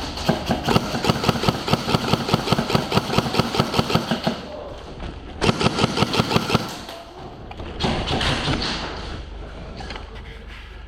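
Airsoft electric rifles firing on full auto: one long rapid burst of evenly spaced shots, then a shorter second burst a second later. A rougher, quieter stretch of noise follows near the end.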